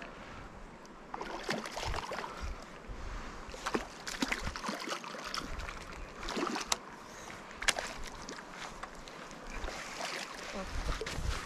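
Irregular splashing and sloshing of water with scattered sharp clicks and knocks, starting about a second in, as a hooked sooty grunter is fought and brought in.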